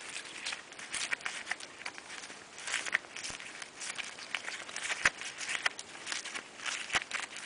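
Gloved hands handling the spark plug cap and ignition lead on a small engine: steady rustling and scraping, with a few sharp clicks, the loudest about five seconds in.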